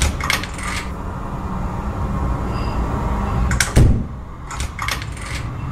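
A door handle rattling and clicking in three bursts over a low, steady rumble, the loudest burst a little past halfway.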